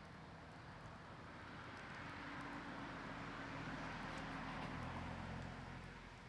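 A vehicle passing at a distance: its tyre and engine noise swells over a few seconds and fades away. Faint crackles from a wood campfire sound underneath.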